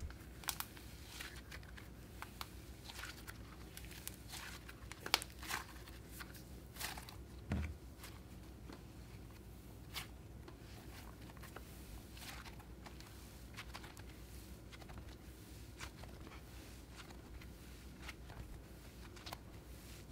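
Faint crackling and soft tearing of a thick cloud slime being stretched, squeezed and pulled apart by hand, with scattered small pops. The pops come thickest in the first half, with one soft low thump about a third of the way in.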